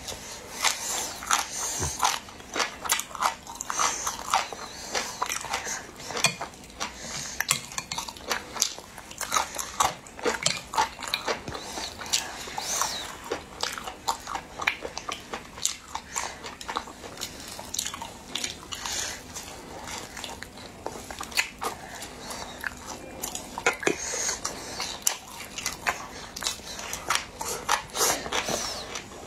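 Close-miked eating: chewing and biting mouth sounds, with chopsticks clicking against a plate. Many short, irregular clicks and smacks follow one another.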